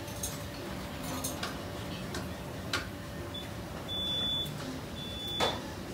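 Steady background noise of a soba shop with a few sharp clicks and a knock, and from about three seconds in a high electronic beep sounding three times, each up to about half a second long.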